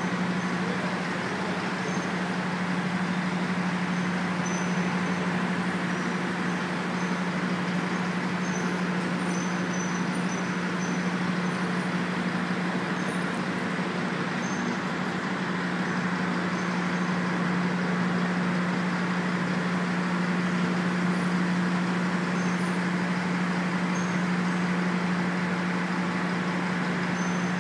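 Steady machinery running, a constant low hum under an even rushing noise that holds without a break.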